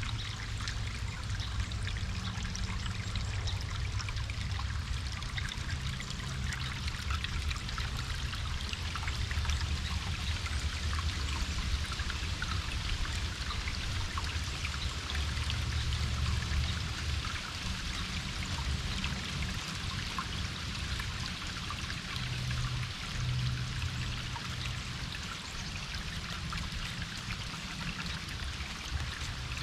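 Water running and trickling steadily, a dense splashing hiss as of a small stream, with an uneven low rumble underneath.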